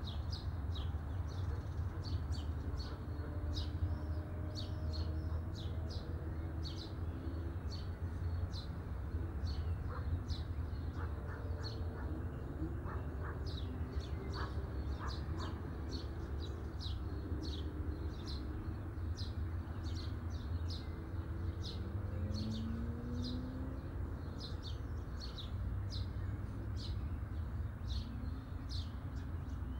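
Birds chirping outdoors: short, high, falling chirps repeated about once or twice a second, over a low steady rumble.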